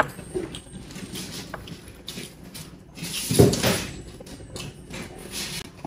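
Close-miked chewing and wet mouth sounds of people eating, with a louder burst of mouth noise about three and a half seconds in.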